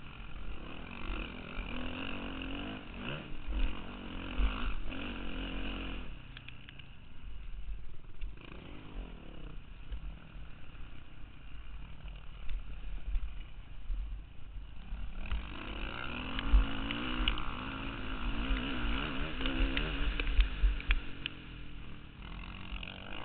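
Motocross dirt bike engine heard from the bike while riding, revving up and down through the track, with heavy wind rumble on the microphone. The engine drops back about six seconds in and picks up again after about fifteen seconds.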